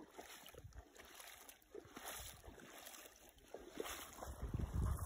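Footsteps wading through shallow creek water in shoes, each step splashing and sloshing. A gust of wind buffets the microphone near the end.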